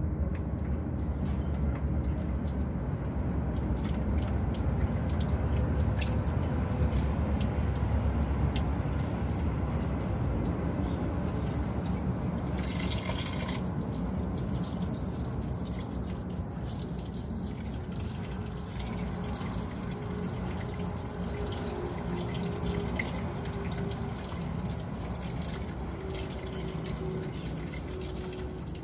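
Water running from the tap of a truck's chassis-mounted plastic water tank and splashing onto hands held beneath it, a steady trickling and dripping, a little louder for the first ten seconds or so.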